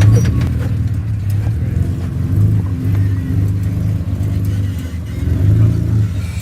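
Engine sound effect for an RC scale crawler: a low truck engine running, swelling louder and easing off several times.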